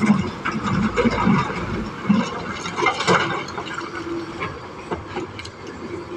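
Komatsu hydraulic excavator working, its engine running, with scattered knocks and clatter of rock as it loads a dump truck.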